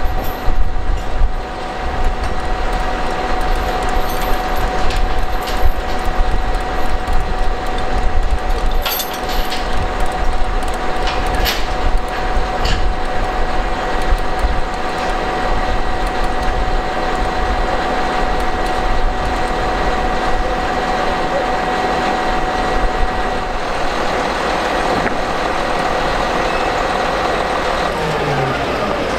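Heavy diesel engine running steadily with a high, steady whine, a few sharp metal clanks about a third of the way in, and the whine falling in pitch near the end.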